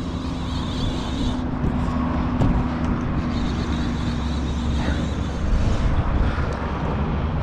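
Steady low outdoor rumble with a hiss over it and a faint steady hum that fades out about two-thirds of the way through.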